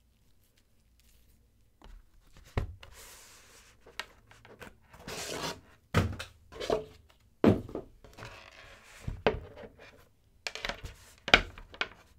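Cardboard headphone packaging being handled and opened, with rustling and sliding noises broken by several sharp knocks and taps, after about two seconds of near silence.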